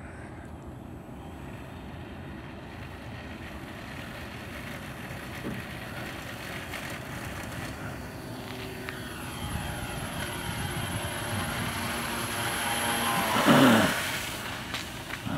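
Model airplane's motor and propeller buzzing as the RC triplane takes off and climbs, growing louder through the run. Near the end it passes close by in a loud sweep, its pitch dropping as it goes past.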